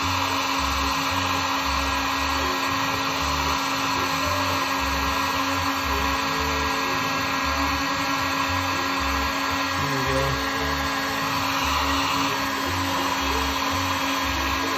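Handheld heat gun blowing steadily, a fan hum under airflow hiss, as it shrinks heat-shrink tubing over spliced wiring. Music with a steady bass beat plays underneath.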